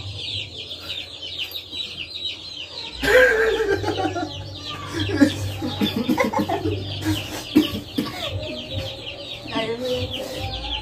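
Chicks peeping in a fast, continuous high chorus of short falling chirps, over a low steady hum. About three seconds in, several people laugh and call out over it for a few seconds.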